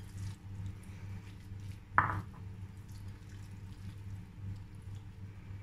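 Fingers scooping soft grated boiled carrot off a china plate and patting it onto plastic wrap, with one sharp knock about two seconds in, over a steady low hum.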